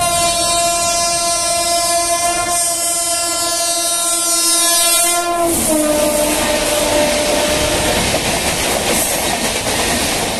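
WAP-7 electric locomotive sounding one long horn blast as it approaches at speed, the pitch dropping suddenly about five and a half seconds in as it passes, the horn fading out a couple of seconds later. LHB coaches rush and clatter over the rails behind it.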